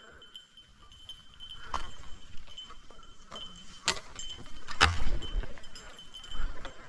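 A small bell tinkling on and off, the kind worn on a bird dog's collar as it moves through the cover, with brush rustle and three sharp clicks.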